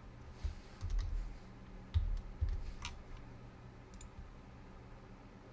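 Scattered clicks of a computer mouse and keyboard, with a few soft low thumps mixed in.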